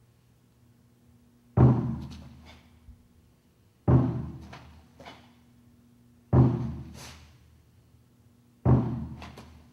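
Counting drum beaten once at a time, four deep strikes evenly spaced a little over two seconds apart, each ringing away before the next; each beat marks a count of the form, the moment the performer moves.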